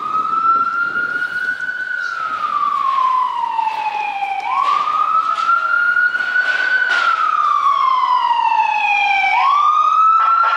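Ambulance siren sounding a slow wail: a quick rise in pitch, then a long slow fall, repeating about every five seconds. It grows louder near the end as the ambulance comes closer.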